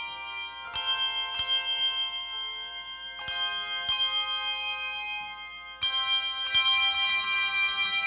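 A handbell choir ringing brass handbells in a slow run of chords. The chords come in pairs every two to three seconds, and each chord is left to ring on under the next. The pair near the end is louder and fuller.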